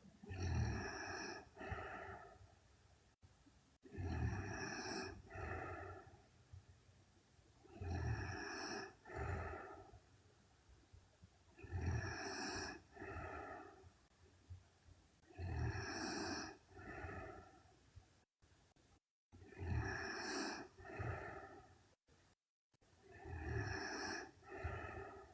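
A sleeping woman snoring in a slow, regular rhythm, about one snore every four seconds. Each snore is a longer, deeper sound followed by a shorter one.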